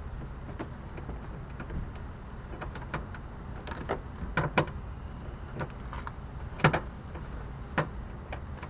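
Scattered clicks and light knocks of a car's interior door trim and tools being handled during reassembly. A few knocks are sharper, the loudest about three-quarters of the way in.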